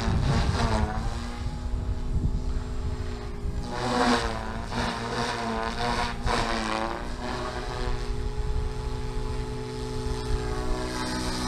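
SAB Goblin 380 electric RC helicopter in flight: its motor and rotor whine sweeps up and down in pitch as it passes and manoeuvres, loudest about four seconds in and again around six to seven seconds.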